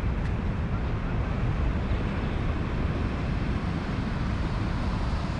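Wind buffeting the microphone in a steady, fluttering rumble over a constant open-air roar, with no separate events.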